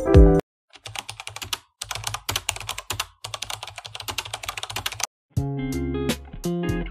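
Rapid computer-keyboard typing sound effect, a dense run of clicks lasting about four seconds, played as title text is typed out on screen. Music cuts off just before it and background music resumes near the end.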